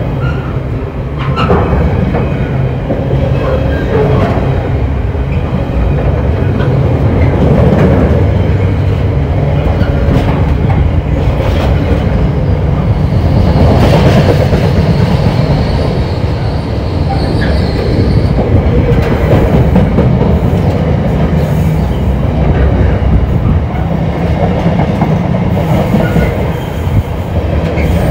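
A train running past on the rails, with a continuous heavy rumble and clickety-clack of wheels over rail joints. Midway through, a thin high squeal holds for several seconds.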